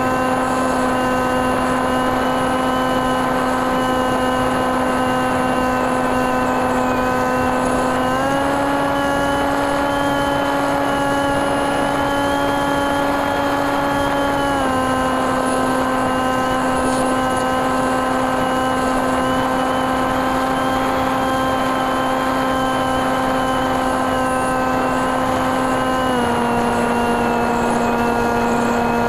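Single brushless motor (NTM 28-26) spinning an 8x6 propeller, heard from a camera on board the FPV aircraft in flight, over a steady rush of air. It holds a steady buzzing pitch that steps up about eight seconds in and drops back about six seconds later, then drops a little lower near the end as the throttle changes.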